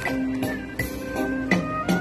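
Instrumental backing music: a wavering melody line over sustained notes, with a steady beat about every three-quarters of a second.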